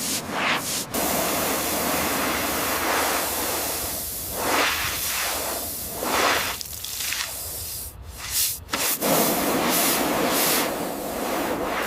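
Hissing water spray, most likely a pressure washer blasting dirt off the bus, running steadily and cutting out briefly a few times.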